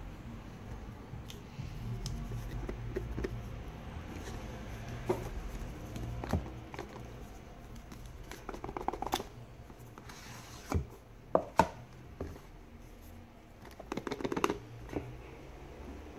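Cardboard phone packaging being handled and unpacked by hand: scattered taps, scrapes and rustles of card against card and fingers, in short clusters with the sharpest knocks a little past halfway.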